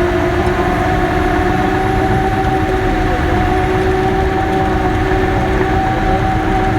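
Cat D6K bulldozer running steadily: a dense engine rumble with a whining tone over it that rises slightly right at the start and then holds level.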